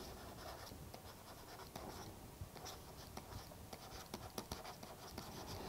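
Faint scratching and light ticks of a stylus writing on a tablet, in short strokes that come more often in the second half.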